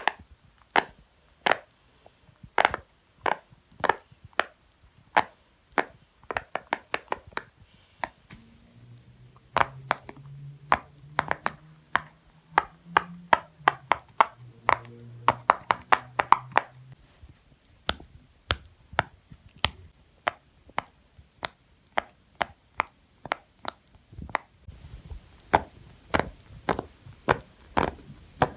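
Silicone pop-it fidget toy bubbles being pressed one after another, a run of sharp separate pops, roughly two to four a second.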